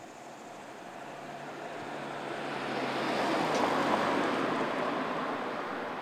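A vehicle passing by on the road, its rushing tyre noise swelling to a peak about four seconds in and then slowly fading.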